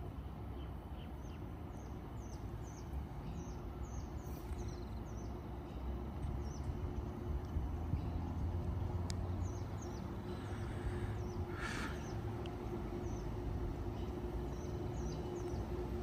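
CAF Urbos 100 light rail tram approaching on a test run: a low rumble, with a steady hum coming in about two-thirds of the way through as it draws nearer. Birds chirp in short, high falling notes throughout, and a brief hiss comes about twelve seconds in.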